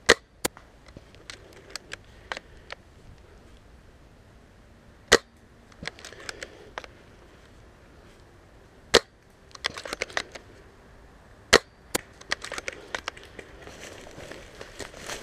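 Sharp single snaps of airsoft gunfire, several shots a few seconds apart, with lighter clicks between them. Near the end, rustling in dry grass and leaves.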